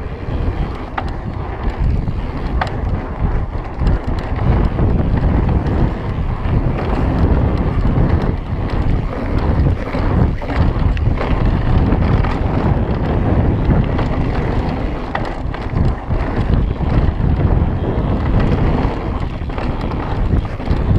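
Wind buffeting the microphone of a mountain bike ridden along a dirt trail, with tyre noise and scattered clicks and rattles from the bike over the bumps.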